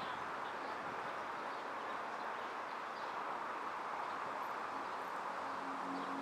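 Steady outdoor background noise with no distinct hoofbeats; a low, steady hum comes in about five seconds in.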